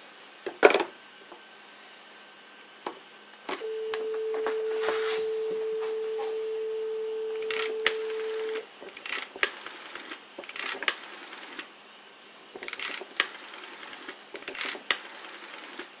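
Handset of an old rotary dial telephone clattering as it is picked up, then a steady dial tone for about five seconds that cuts off suddenly. After that the rotary dial is wound and runs back several times, each return a short run of clicks as the digits of a code are dialled.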